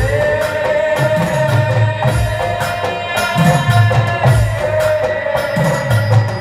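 Live Hindu devotional (bhajan) music from a stage band over loudspeakers: long-held melody notes that change every couple of seconds over a steady drum beat.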